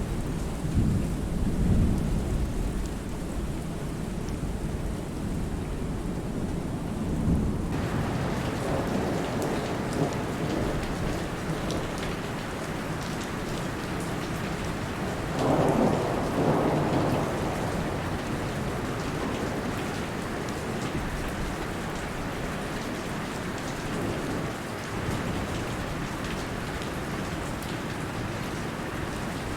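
Rain falling steadily in a thunderstorm, with rumbles of thunder. About eight seconds in, the rain's hiss suddenly becomes fuller and brighter, and a louder roll of thunder comes about halfway through.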